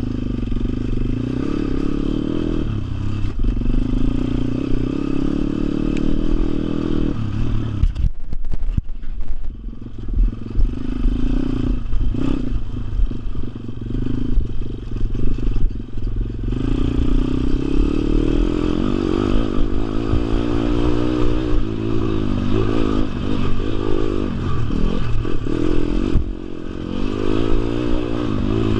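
WPB 160R pit bike's 160cc four-stroke single-cylinder engine running under load as the bike is ridden. About eight seconds in, the throttle shuts briefly and the engine note drops away, with some knocks from the bike. From the middle onward it revs up and down again and again with the throttle.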